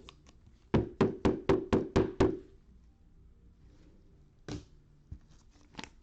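Hard knocks: seven quick ones in a row, about four a second, then two softer single knocks.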